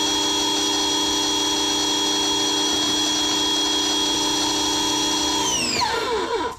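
Power tool motor running at a steady pitch, then switched off about five and a half seconds in and winding down, its pitch falling until it stops.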